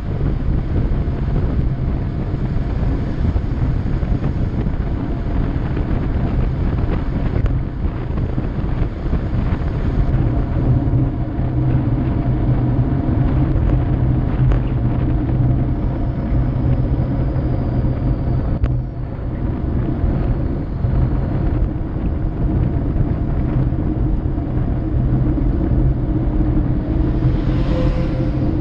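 Motorcycle running at a steady cruising speed: a steady engine hum under wind rushing over the bike-mounted camera's microphone. Near the end the sound briefly swells as a second motorcycle comes close.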